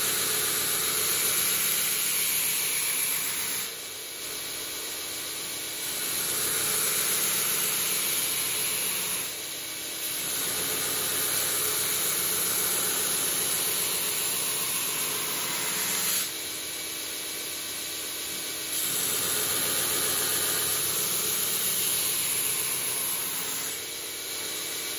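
Belt grinder with a coarse 24-grit abrasive belt grinding a knife bevel, the blade held in a grinding jig against the running belt. A steady grinding hiss over the motor hum, louder during each pass and dropping back between passes, about four passes in all.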